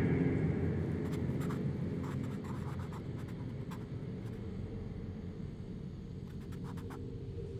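Pencil scratching on notebook paper in short strokes, in two clusters, over a low steady rumble.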